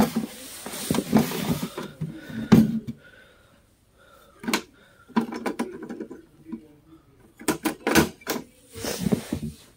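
Handling noise from a plastic tub enclosure: rustling and scattered clicks and knocks as its lid is worked open, with a cluster of sharper knocks near the end.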